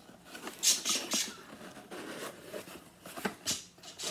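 Small cardboard box being worked open by hand: its flaps and sides scrape and rub in short, irregular scratchy strokes, a few louder ones about half a second, a second and three seconds in.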